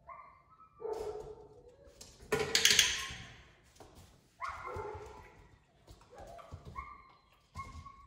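German Shorthaired Pointer puppy whining in short, high-pitched whimpers, with one louder bark about two and a half seconds in.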